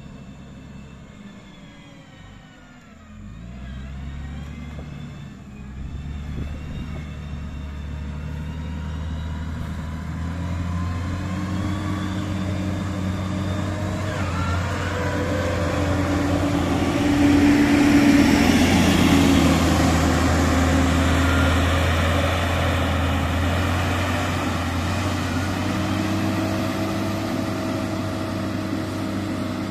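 Diesel engine of an XCMG motor grader running. Its revs dip about three seconds in, then rise, and the engine grows louder to a peak a little past the middle before easing off slightly.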